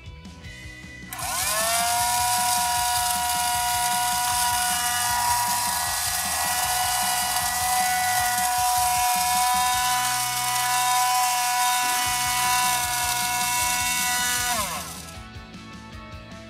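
A toy iron's small battery motor whirs up about a second in, runs steadily, and winds down near the end, with a hiss as its fan blows the little beads around inside the clear chamber. Quiet background music plays underneath.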